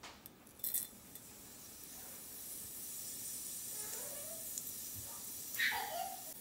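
Seeds sizzling and spluttering in hot fat in a stainless steel pressure cooker: a faint, high hiss that grows steadily louder. A short voice-like call sounds in the background near the end, the loudest thing here.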